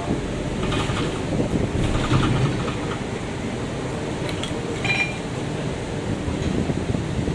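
Inside a city bus: the engine runs steadily under the third (rear) door's mechanism, with faint rattles early on and a short high beep about five seconds in.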